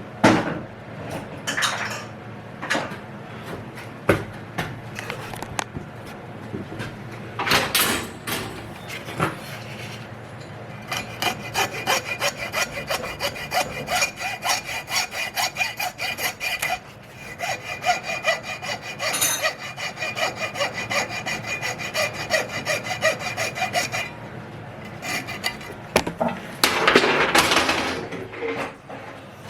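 Fast, even rasping strokes of a hand tool working ringing metal, kept up for about thirteen seconds, after a stretch of scattered knocks and handling clatter. A louder scraping burst comes near the end.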